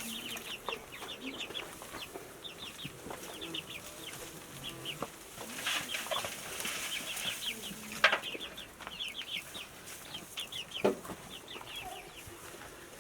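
Chickens clucking, with quick high chirps in repeated clusters throughout. Two sharp knocks, the louder about eight seconds in and another near eleven seconds.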